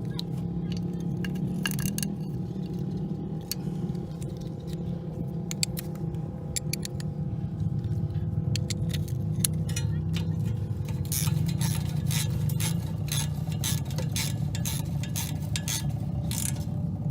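Metal tools and small bolts clinking and scraping as the oil filter cover on a quad's engine is bolted back on. The clinks come more thickly in the last several seconds, over a steady low hum.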